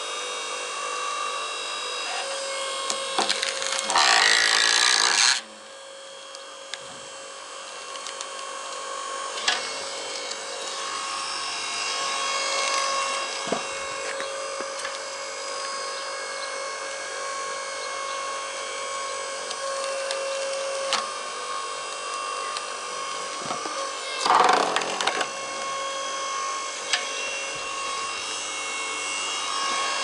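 Hydraulic log splitter running with a steady whine while its ram forces through a damp stump. The wood cracks and tears loudly about four seconds in and again late on.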